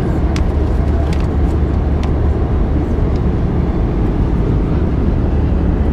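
Airbus A320 cabin noise in flight: a steady, deep, even rumble of engine and airflow noise. A few faint rustles and clicks of magazine pages being handled come in the first two seconds.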